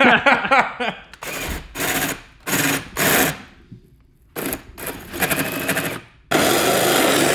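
Power drill with a hole saw cutting through a dinghy's hull in a series of short bursts, then a longer unbroken run near the end. Laughter fills the first second.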